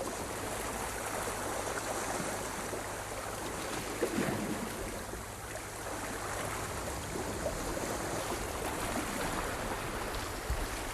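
Ocean waves washing in, a steady surf sound that swells gently, most clearly about four seconds in.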